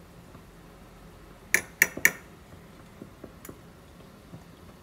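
A metal spoon clinking against a ceramic ramekin of green chutney: three sharp, ringing clinks in quick succession about a second and a half in, then a couple of fainter taps.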